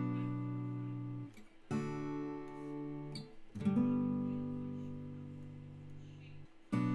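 Slow strummed chords on an acoustic guitar, each left to ring and fade before the next is struck, about every two seconds.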